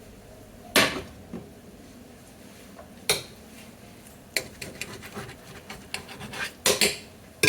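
Cookware and utensils clattering as an omelette is moved from a non-stick pan to a plate: a few sharp knocks with lighter clicks and scrapes between them, the loudest near the end.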